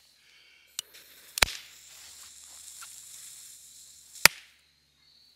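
Two firecrackers lodged in a pumpkin go off about three seconds apart, each a sharp bang, with the hiss of a burning fuse between them.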